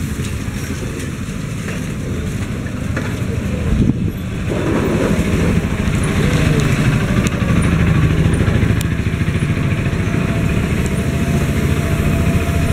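A nearby vehicle engine running steadily, growing louder about four and a half seconds in, with street noise behind it.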